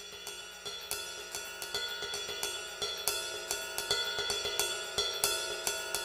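Background music intro: a quick, steady hi-hat and cymbal beat over a held tone, growing steadily louder.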